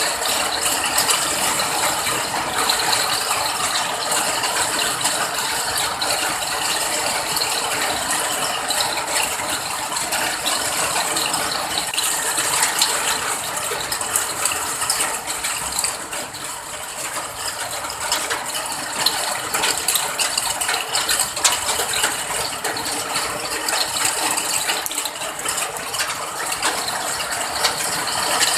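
Steady rain falling: a dense, even crackle of many small drops hitting a surface.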